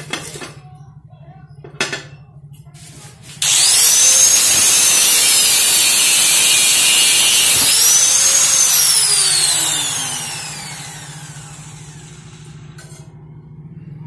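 An angle grinder cuts into the steel shell of a refrigerator's hermetic compressor. It starts suddenly about three and a half seconds in with a loud high whine, then is switched off and winds down in a long falling whine. Two sharp knocks come before it.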